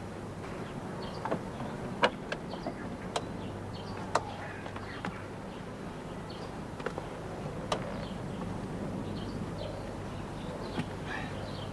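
Quiet country ambience: faint bird chirps over a steady low hum, with a dozen or so sharp clicks scattered through it, the loudest about two and four seconds in.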